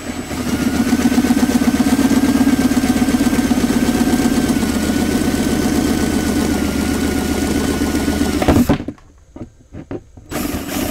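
Cordless drill with a 1-inch spade bit cutting a hole through the plastic wall of a cat litter bucket. The motor runs steadily with a whine for about eight and a half seconds, stops, and starts again briefly near the end.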